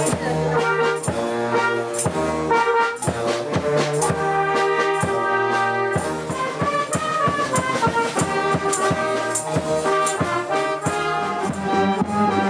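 A brass band playing: trumpets, trombones and a sousaphone carry the tune over a steady beat of cymbal strokes.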